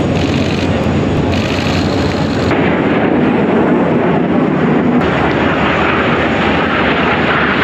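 Jet engines of the Al Fursan display team's Aermacchi MB-339 aircraft flying past overhead: loud, continuous jet noise that turns harsher and hissier about five seconds in.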